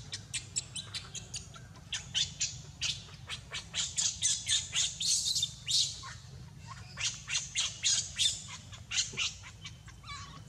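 Newborn macaque's distress cries: a rapid string of short, high-pitched squeals, several a second, loudest around the middle. The cries come from an infant left alone on the ground, away from its mother.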